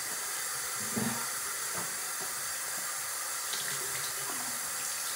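Tap water running steadily into a bathroom sink as a towel is wetted under it.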